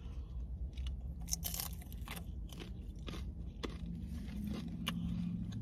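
Close-up chewing of a mouthful of crunchy hard-shell taco: irregular, crisp crunches as the shell is bitten and ground between the teeth.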